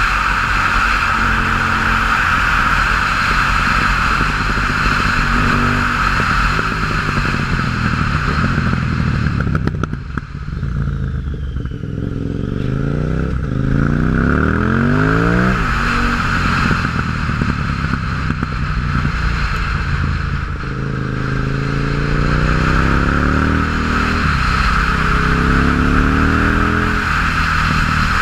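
KTM 950 Supermoto's V-twin engine through a MIVV exhaust with the dB-killers removed, being ridden hard. The revs rise and fall, and twice in the second half they climb steeply for a few seconds before dropping back as the bike shifts up.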